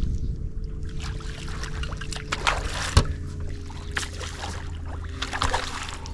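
Small hooked barramundi splashing at the surface beside an aluminium boat as it is reeled in: several short splashes, with a single sharp knock about three seconds in, over a steady low rumble.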